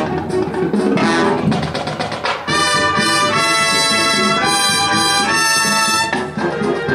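High school marching band playing. About two and a half seconds in, the brass comes in with a series of loud held chords, each about a second long, that stop a little after six seconds.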